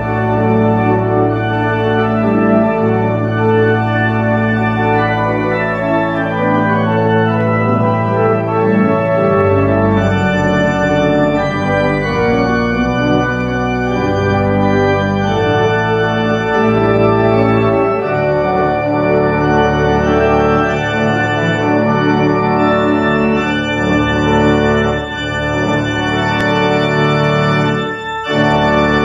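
Church organ played on manuals and pedals: full sustained chords over a pedal bass that changes note every few seconds, with a brief break between phrases near the end.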